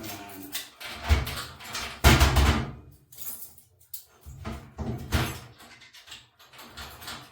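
A key jangling on its ring and being worked in the lock of a coin-operated washer, with irregular metal rattles and several heavy knocks. The key does not want to turn.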